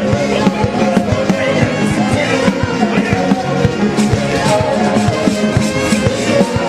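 Live church praise-band music with a steady, driving drum beat under sustained low notes.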